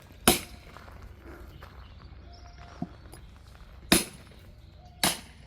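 Three sharp metallic strikes of a hammer driving a steel wedge into a log to split firewood, the first just after the start and the last two about a second apart near the end, each with a brief ring.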